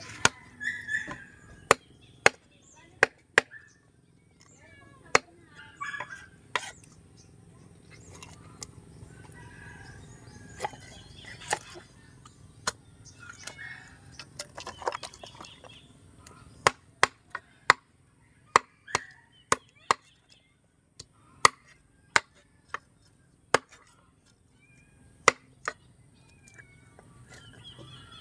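A large knife chopping a freshwater fish into pieces on a wooden chopping block: sharp, irregular blade strikes, several in quick runs.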